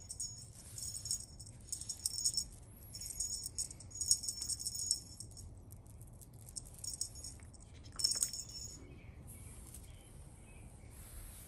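Bright metallic jingling in short, irregular shakes, several times over, then a steadier, fainter jingle near the end.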